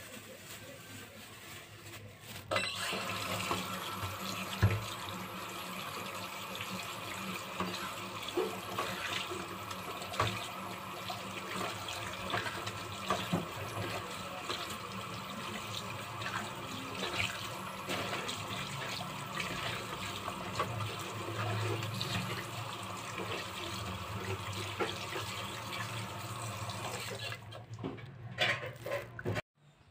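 Kitchen tap running onto raw pork pieces in a plastic colander in a stainless steel sink, with splashing and small knocks as the meat is rubbed and turned by hand. The water comes on about two and a half seconds in and stops near the end.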